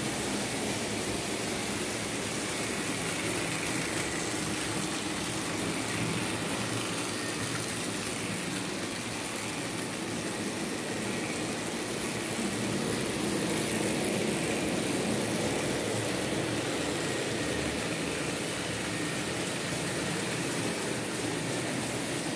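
Märklin H0 model trains running on the layout: a steady mechanical hum and rattle of the small locomotive motors and the wheels rolling on the track.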